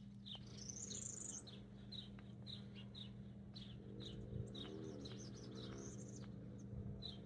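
A small songbird chirping, with short, sharp, falling chirps about two a second and a couple of higher, longer notes, over a steady low hum.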